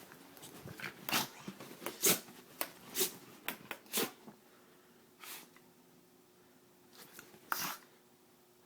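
A dog sneezing again and again in short, sharp bursts, about one a second, then a couple more after a pause near the end. These are excited play sneezes.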